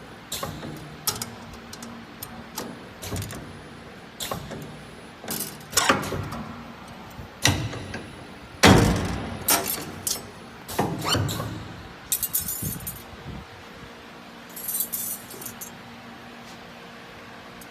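CNC wire-working machine running, with irregular sharp metallic clanks and clinks over a steady motor hum.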